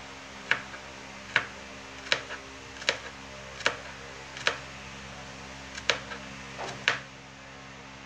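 Kitchen knife slicing garlic cloves on a plastic cutting board, the blade knocking the board with each cut. About eight sharp knocks roughly a second apart, with a short pause a little past the middle.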